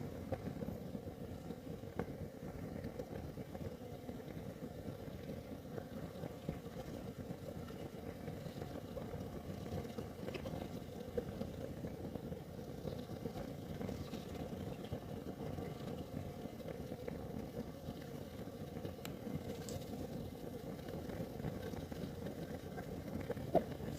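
Kerosene heater burning: a steady low rumble of the flame, with a few faint ticks scattered through.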